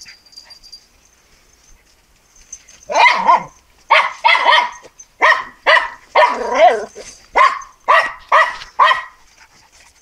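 A small terrier barking, about ten barks in a row, starting about three seconds in and going on for about six seconds.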